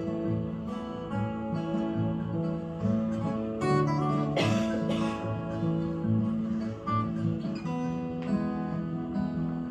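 Acoustic guitar fingerpicked, with a steadily pulsing bass under held melody notes and no singing. About four and a half seconds in there is one brief, brighter, noisier stroke across the strings.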